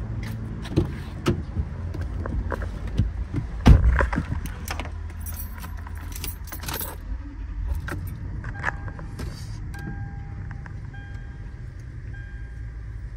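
Keys jangling with clicks and knocks as someone gets into a car, with one loud thump about four seconds in. From about nine seconds in, a repeating electronic warning chime beeps on and off.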